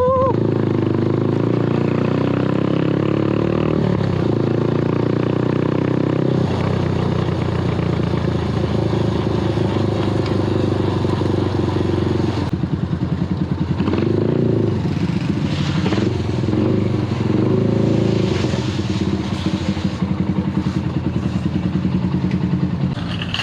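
Motorbike engine running while being ridden, its pitch rising and falling several times as the throttle and speed change.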